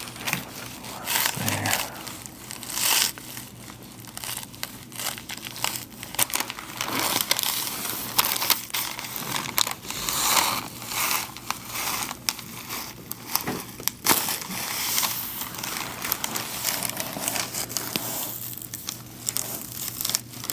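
Neck joints cracking during chiropractic adjustments: many sharp pops and crackles over a crinkling, rustling background.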